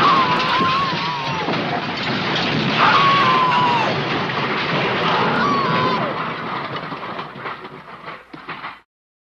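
Loud, noisy cartoon sound effects: a rattling clatter with three wavering high-pitched tones, each about a second long and falling at its end, about two and a half seconds apart. It fades and then cuts off suddenly near the end.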